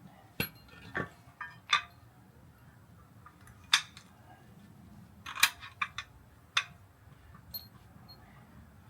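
A scattered series of sharp clicks and clinks, about a dozen at irregular intervals, several of them loud, over a faint steady background hum.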